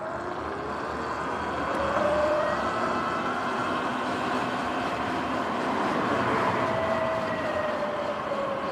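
Sur-Ron X electric dirt bike riding along: a motor and drivetrain whine over a steady rush of wind and tyre noise. The whine rises in pitch over the first couple of seconds as the bike picks up speed, then holds roughly steady.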